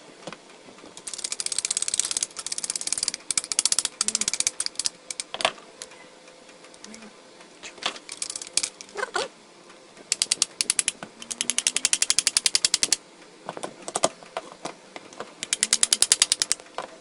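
Ratcheting hand tool clicking in quick, even runs, about five bursts of one to two seconds each with handling knocks between, as screws are worked loose while an electric fan's motor housing is taken apart.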